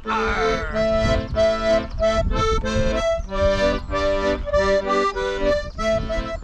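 Piano accordion played solo: a melody changing about twice a second over sustained chords.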